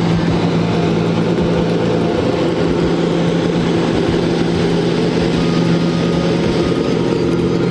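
Heavy truck engine running steadily with a constant low hum.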